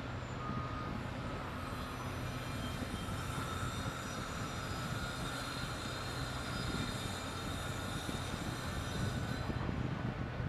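Diesel engines of a Cat mini excavator and other heavy construction machines running steadily: a low engine drone with a thin whine above it that climbs slightly in pitch about a second in.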